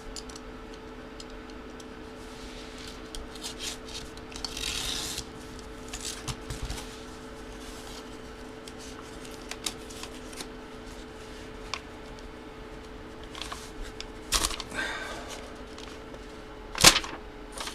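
Paper envelope being opened and its contents handled: soft, irregular rubbing and rustling with scattered light clicks, over a steady low hum. A louder sharp click comes near the end.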